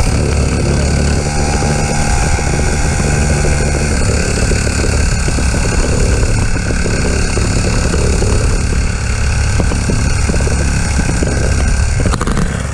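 SYX 50 pit bike's small single-cylinder engine running steadily, with no clear revs.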